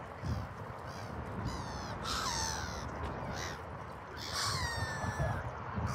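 Gulls calling from a flock of waterbirds: short harsh calls repeated every half second to a second, with two longer falling calls, about two seconds in and again past four seconds.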